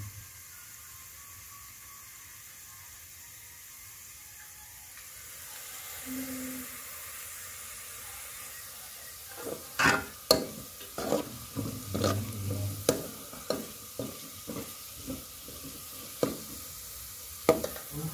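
Chicken, onions and green chillies sizzling in a metal pot on a gas burner. From about nine seconds in, a metal spoon scrapes and knocks against the pot as the food is stirred, in a run of sharp clicks.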